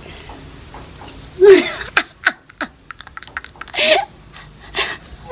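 A woman laughing in several short, loud bursts, with a run of light clicks between the first two.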